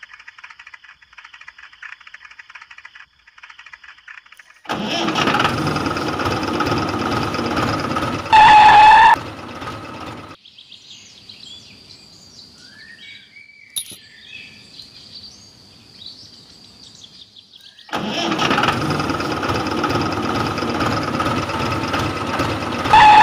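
A tractor engine runs loudly in two stretches, and each stretch ends in a short, loud, honk-like tone. Between them is a quieter gap with birds chirping. A faint rapid ticking comes before the first stretch.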